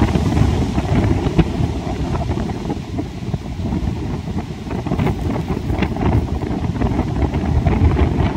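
Heavy surf breaking and washing ashore, with strong wind buffeting the microphone; the rumble eases a little about three seconds in and builds again.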